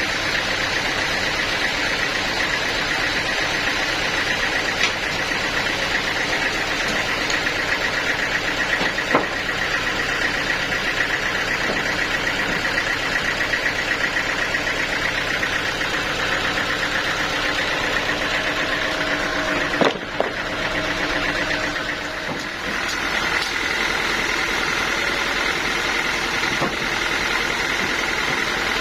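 Engine-driven sawmill machinery running steadily with a constant high whine. There are a few sharp knocks, and the sound dips for a couple of seconds about twenty seconds in before carrying on.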